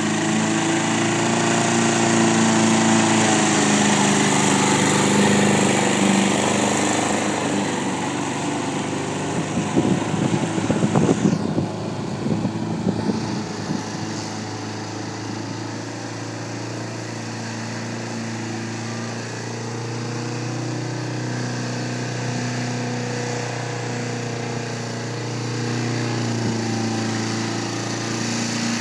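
Gas lawn mower engine running steadily on a radio-controlled mower as it drives across the lawn cutting grass. It fades as the mower moves off and swells again near the end. About ten seconds in, a few seconds of rough, uneven clatter break into the steady running.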